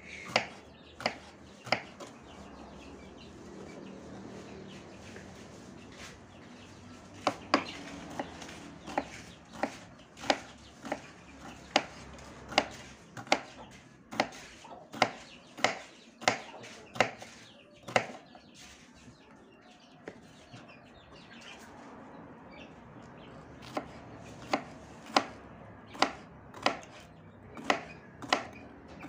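Kitchen knife slicing bitter melon on a wooden cutting board: sharp chops of the blade against the board, about two a second, stopping twice for a few seconds.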